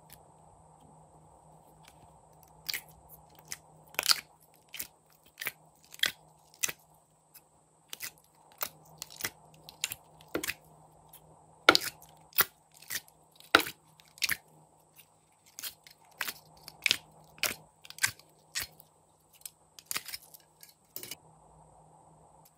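Glossy slime being pressed and peeled out of the cells of a plastic compartment tray: a string of short, sharp sticky pops and crackles at an uneven pace, roughly one or two a second.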